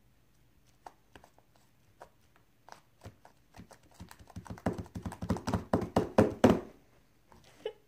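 Fluffy shaving-cream slime being squeezed and stretched by hand, making small wet pops and clicks. They come singly at first, then grow into a rapid, louder run of pops from about four seconds in that stops shortly before the end.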